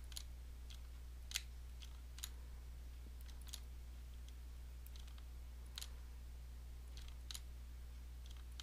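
Sparse, irregular light clicks from a computer pointing device during digital painting, about a dozen over several seconds, over a steady low electrical hum.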